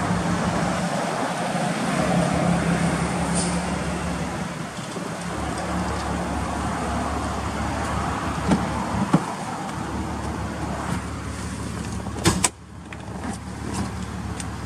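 Toyota Crown Athlete's V6 idling with a steady low hum through its aftermarket muffler. About twelve seconds in, a car door shuts with a sharp thump, and after that the idle is quieter and muffled, heard from inside the cabin.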